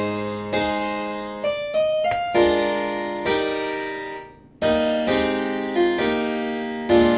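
Keyboard instrument playing slow chords, each struck and then fading away, with a brief break about four seconds in before the next chord.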